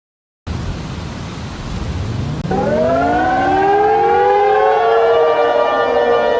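Several civil defense sirens winding up together, starting about half a second in with a low rumble. The first wail rises from about a second and a half in, and more join about a second later, overlapping and wavering at different pitches.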